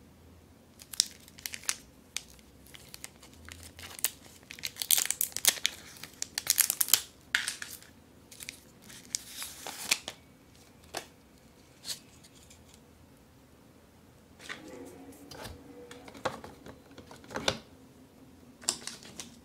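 Paper sleeve of a Tirol Choco MIX chocolate multipack being torn open and crinkled, with dense crackles and sharp clicks for the first half. Then quieter paper and cardboard handling with a few sharp taps.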